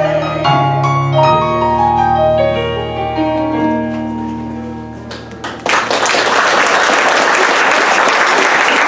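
A piano closes a song with a slow run of notes stepping downward, each note left to ring and fading away. About six seconds in, audience applause breaks out and continues.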